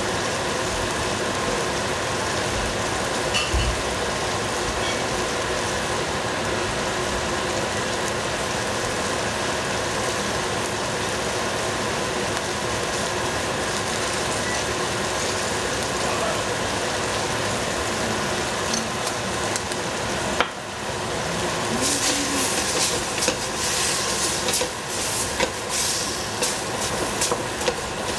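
Green cauliflower sizzling in a covered pan with cooking wine, a steady hiss. About two-thirds of the way in it gives way to louder, irregular crackling and popping.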